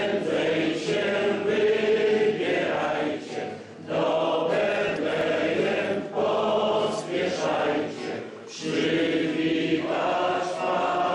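A roomful of people singing together in unison, in long held phrases with short breaks between them.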